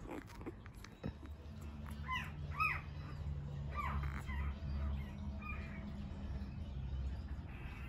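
Five-day-old puppy squealing in short, high, up-and-down squeaks, several times, over a low steady hum.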